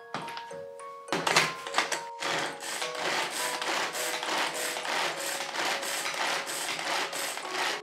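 Pull-cord manual food chopper (Bunbun Chopper) pulled again and again, a rhythmic whirring rattle of the cord and spinning blades mincing onion in its plastic bowl. It starts about a second in.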